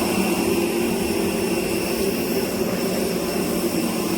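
Jet airliner noise: a steady hum with constant high-pitched whine tones layered over it.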